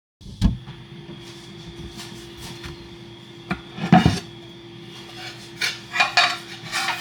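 Kitchen clatter of pots, pans and dishes being handled: scattered knocks and clinks, with a heavier thump about four seconds in and a quick run of clatters near the end, over a steady hum.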